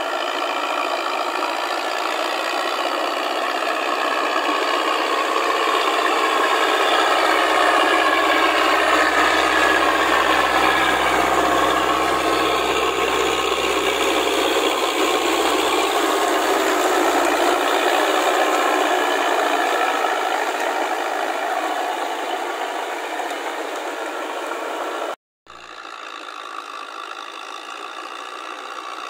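Tractor diesel engine running under load, with the steady clanking and rattling of a crawler-track rotary attachment churning through flooded paddy mud. The sound cuts out briefly near the end and comes back quieter.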